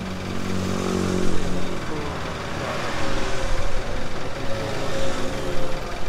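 Road traffic going by: motorcycles and cars passing one after another, their engine notes rising and falling as they pass.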